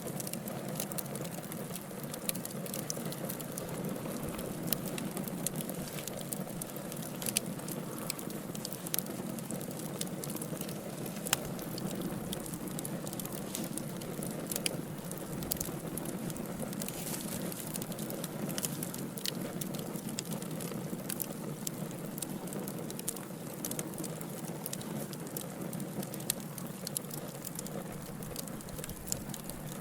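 Wood fire burning in a fireplace: a steady low rush of flames with frequent small, irregular crackles and pops from the logs.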